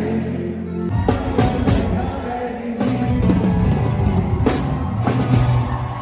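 Live band playing rock-style music: a held chord, then about a second in the drums come in with several cymbal crashes.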